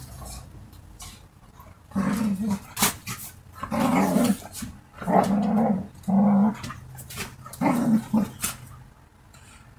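Dogs play-fighting, growling in a run of short rough growls from about two seconds in until near the end, with sharp clicks between them.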